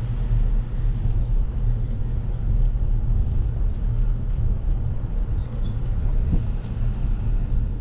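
Wind buffeting a GoPro's microphone on a moving bicycle: a steady, loud low rumble.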